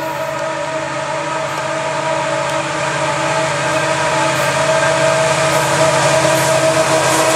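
Diesel locomotive engine sound from a running HO scale model train: a steady drone of several held tones that grows gradually louder as the lead locomotives approach.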